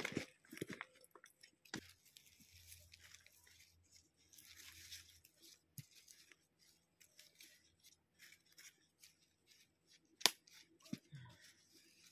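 Faint rustling and scraping of soil and leaves as a primula is pressed into a plastic flower pot by hand, with scattered small knocks of the pot, the sharpest about ten seconds in.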